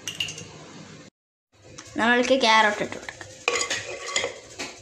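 Metal plate scraping and clattering against the rim of a pressure cooker as grated carrot is tipped in, with a loud pitched scrape about two seconds in.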